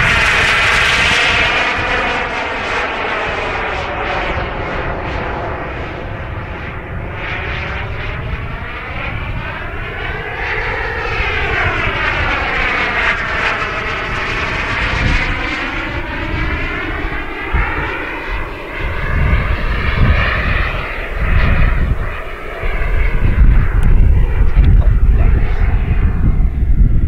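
Kingtech K85 G4 turbine of a Hangar9 MB-339 model jet in flight: a continuous jet rush whose tone sweeps up and down as the plane moves across the sky. It grows louder, with a low rumble, in the last few seconds.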